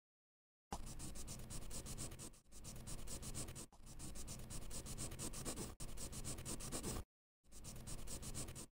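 Pen nib scratching across paper in quick strokes, in several stretches that cut off abruptly, with a short pause about seven seconds in.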